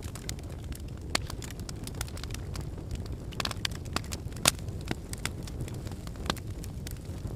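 Fireplace crackling: irregular sharp pops and snaps over a steady low rumble, with the loudest pop about four and a half seconds in.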